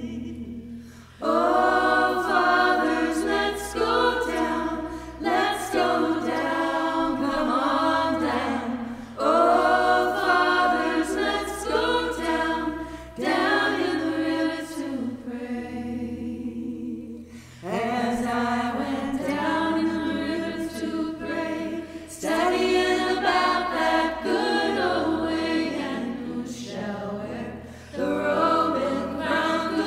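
A vocal trio singing in harmony, phrase after phrase with short breaks between them.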